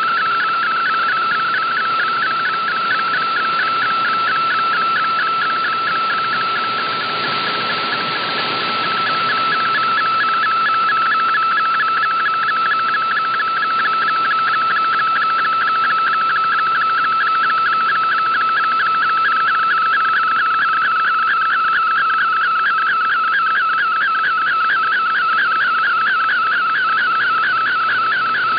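Shortwave digital-mode picture transmission received off the air: a steady warbling tone near 1.4 kHz with a fast, even flutter as a colour image is sent line by line after MFSK32 text, over band hiss that swells briefly about seven seconds in.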